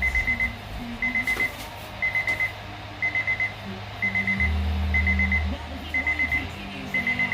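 Weather radio receiver sounding its alert alarm: a high beep in quick groups of four, repeating about once a second, over a low steady hum.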